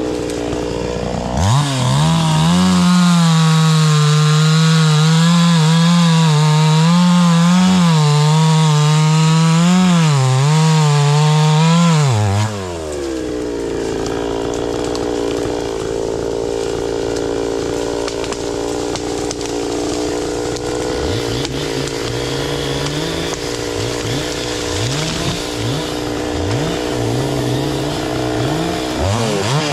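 Two-stroke chainsaw revved to full throttle about a second and a half in and cutting wood for about ten seconds, its pitch dipping and recovering under load. It then drops back to a steady idle and revs up again near the end.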